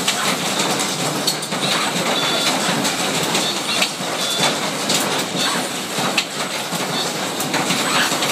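Robotic assembly machine running, with Fanuc picking robots and a parts conveyor: steady mechanical clatter broken by frequent sharp clicks and clacks at irregular intervals.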